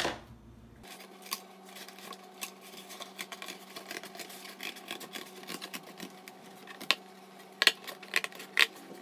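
Scissors cutting through corrugated cardboard: a series of short snips, the loudest few in the last couple of seconds.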